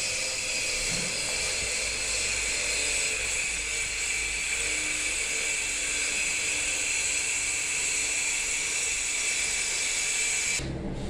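A power tool's motor running steadily with a high whine, then cutting off suddenly near the end.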